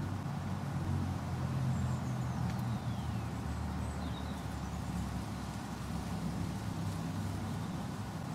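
Steady low rumble of road traffic, with a couple of faint high bird chirps a few seconds in.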